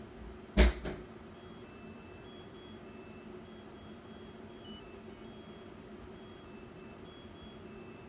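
Samsung dishwasher's end-of-cycle chime: a tune of high electronic beeps that starts about a second and a half in and is still playing at the end, signalling that the wash cycle has finished. Two sharp clicks come just before it.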